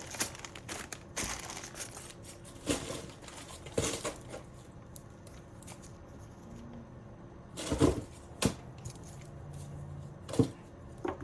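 Nail products in plastic bags and packaging being packed back into a box: crinkling plastic and scattered knocks and clicks as items are set down, loudest around eight seconds in and again near the end.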